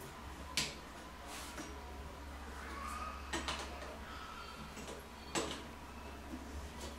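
Adjustable wrench clicking against the chrome fittings of a toilet flush valve as a nut is loosened: three sharp metallic clicks a couple of seconds apart, over a faint steady low hum.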